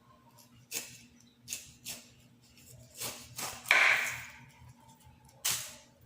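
A kitchen knife slicing through a ripe pineapple's rind: several short swishing, scraping cuts, the longest and loudest just under a second long about four seconds in.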